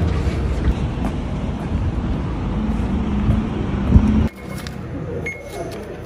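Outdoor street noise, a steady low rumble of traffic, that cuts off abruptly about four seconds in to a quieter indoor hum with a few small clicks.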